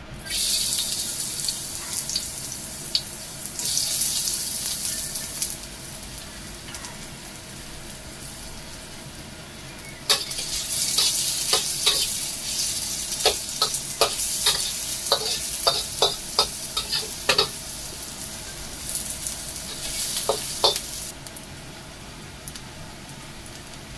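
Chopped garlic and onion sizzling in hot oil in a metal wok, the sizzle swelling in waves, with a metal spatula stirring and clicking against the pan through the middle stretch. The sizzle dies down near the end.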